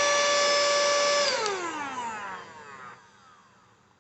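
Cordless mini vacuum cleaner's small motor, fitted as a blower, running at a steady high whine, then switched off about a second in, its pitch falling as it winds down and fades out.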